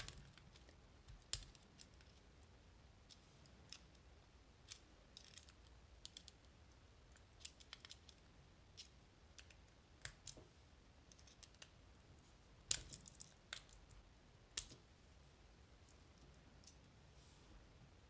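Small screwdriver working the screws out of the face of a Kaba Ace dimple lock cylinder: faint, scattered small metallic clicks and scrapes, with a few sharper clicks about a second in and around two-thirds of the way through.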